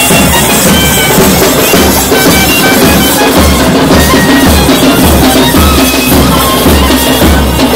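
Nadaswaram, the South Indian temple double-reed pipe, playing a melody over a steady reed drone, with drum beats underneath.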